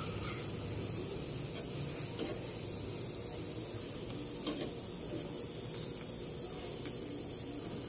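Gas stove burner flame hissing steadily under long eggplants roasting directly on the grate, their charring skins sizzling, with a few faint crackles.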